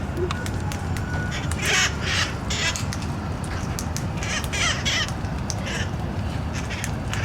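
Wild parrots feeding on berries: several harsh, raspy squawks among scattered sharp clicks of berries being popped, over a steady low rumble.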